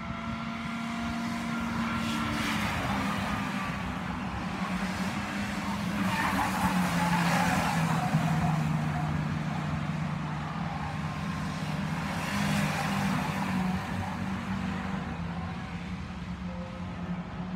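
Stock car engines running as the cars lap the oval, the noise swelling each time cars pass close by, about two, seven and twelve seconds in.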